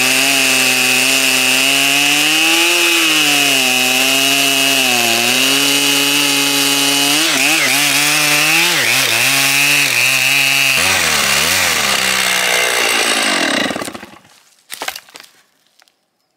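Stihl 088 Magnum, a 120cc two-stroke chainsaw, running at full throttle through a log, its pitch dipping and rising as the chain loads up. About eleven seconds in it drops back, winds down and stops about three seconds later, followed by a few light knocks.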